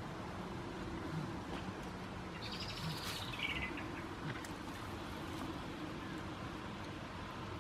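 A small bird's short song, a quick trill falling in pitch, about two and a half seconds in, over a steady low background hum.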